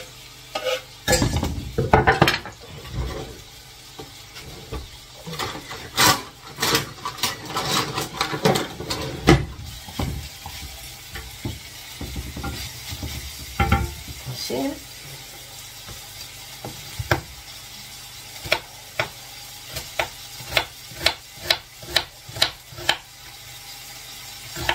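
Onion and sausages sizzling in a frying pan while being stirred with a utensil, with frequent knocks and scrapes against the pan. Near the end come evenly spaced taps, about two a second.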